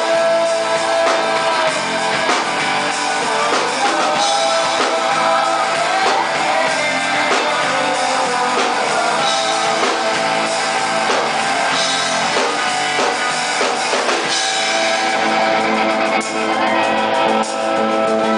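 Live rock band playing: electric bass guitar and drum kit, with guitar.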